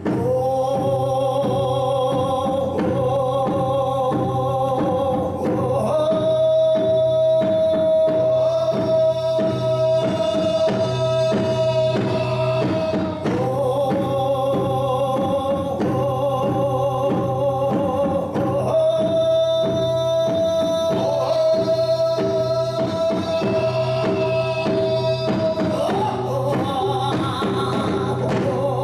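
Live ensemble accompaniment to a Korean popular song: a long-held, slightly wavering melody line, notes sustained for several seconds at a time, over a steady percussion beat.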